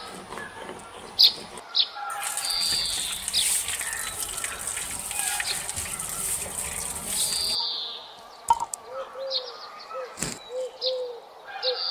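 Tap water pouring onto fish pieces on a concrete floor for about five seconds, with birds chirping throughout. Near the end, a dove coos in short repeated phrases and there are two sharp knocks.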